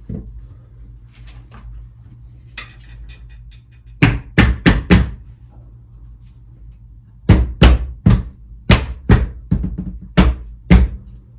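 Sharp knocks on a UPVC door frame as the plastic glazing beads are tapped back into their channels to hold the new panel: a quick run of four about four seconds in, then about seven more spread over the last few seconds.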